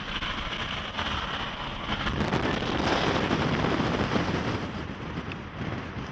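Strong tornado winds rushing and buffeting the microphone as a dense, steady roar of noise that swells in the middle and eases near the end.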